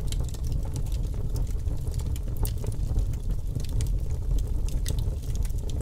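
A steady low rumbling noise with many small crackles scattered through it.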